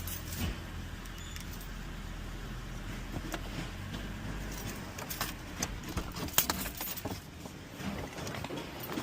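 An SUV's engine idling with a steady low hum, which stops about five seconds in, followed by scattered clicks and knocks.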